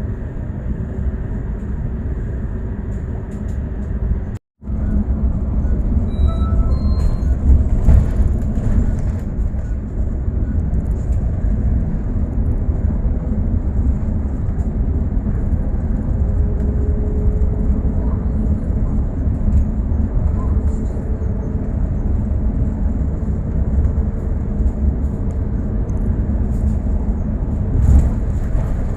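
Bus in motion heard from inside the passenger cabin: a steady low rumble of engine and road noise. The sound cuts out completely for a moment about four seconds in.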